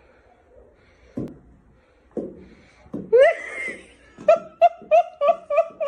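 A person's high-pitched laughter: a loud rising cry about three seconds in, then a run of about six quick 'ha' bursts, roughly three a second.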